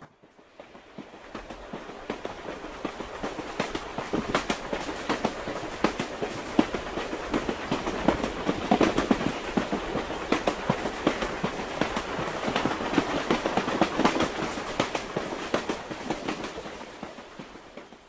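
Suburban electric train running along the track, heard from aboard: a dense, irregular clatter of clicks and knocks from the wheels and carriage over a steady rumble. It grows louder over the first few seconds and eases off near the end.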